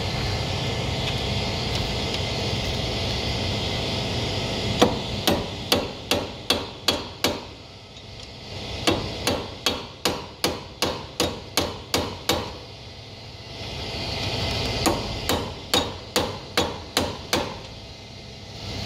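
Hammer striking a steel punch against a CV axle nut to stake its collar into the spindle groove as a lock, in three runs of quick metal-on-metal blows, about three to four a second, each ringing briefly. A steady background hum fills the first few seconds before the blows start.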